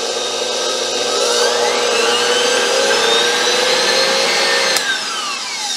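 KitchenAid Pro 6-quart bowl-lift stand mixer running with an empty bowl: a steady motor-and-gear whine that rises in pitch as it speeds up about a second in, holds, then falls away as it winds down near the end.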